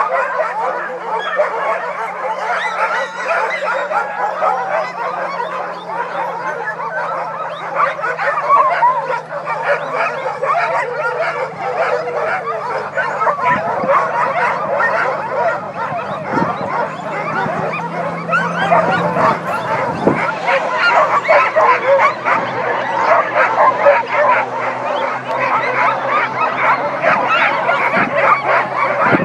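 A large group of harnessed sled dogs yipping, barking and howling all at once in a continuous excited chorus, the typical clamour of teams hooked up and eager to run.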